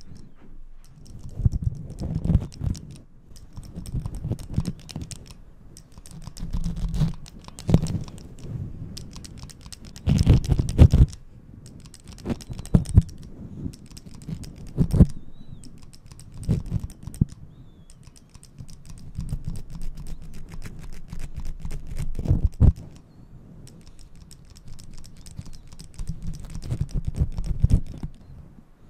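Manual hand hair clippers worked close against a fur-covered microphone: bursts of rapid clicking snips, with low rubbing on the furry cover in the louder bursts and short pauses between them.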